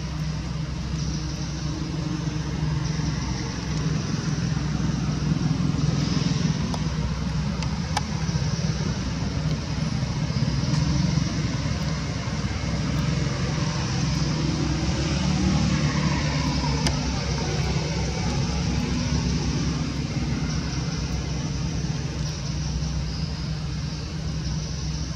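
A motor engine running steadily, a constant low hum with traffic-like noise over it.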